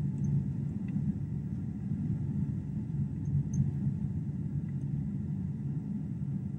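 Airliner cabin noise during the descent to land: a steady low rumble heard from a window seat inside the cabin.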